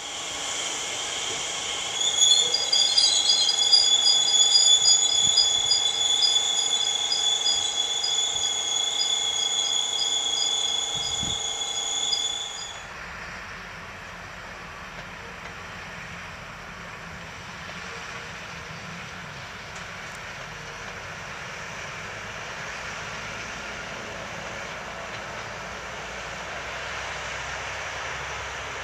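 Bombardier Talent 2 (class 442) electric multiple unit squealing loudly as it brakes, two high steady squeal tones with a faster pulsing tone between them, apparently during a brake test. The squeal cuts off abruptly about twelve seconds in, leaving a quieter, steady even noise.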